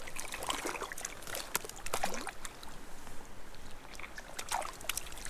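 Creek water trickling and pouring at a beaver dam, with scattered small splashes and ticks.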